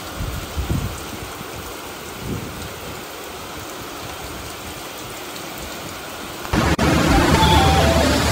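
Steady rain falling on a paved rooftop terrace, with two brief low rumbles in the first few seconds. About six and a half seconds in it cuts to louder street noise from a wet city road, with a tune of music notes over it.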